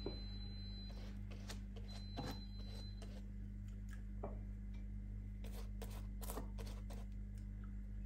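Soft, scattered dabs and light taps of a silicone pastry brush spreading egg wash over pastry and dipping into a small bowl, over a steady low hum.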